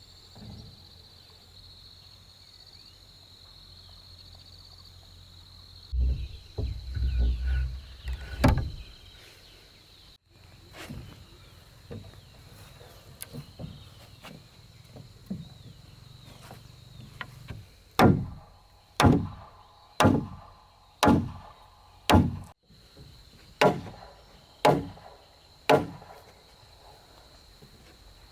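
Hammer blows on timber: a run of eight sharp knocks, about one a second, in the second half, after some heavier thuds and clatter about six seconds in. An insect shrills steadily throughout.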